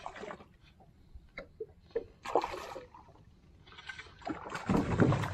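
Small knocks and clicks in a small aluminium fishing boat while a hooked kahawai is reeled in. Near the end comes a louder splashing rush as the fish comes to the surface at the boat's side.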